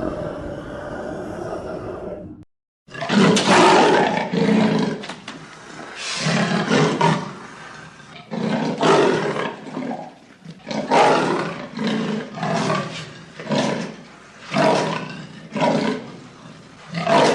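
A low rough growl that stops about two and a half seconds in, then after a brief silence a tiger roars in a run of about ten short, rough roars, roughly a second apart.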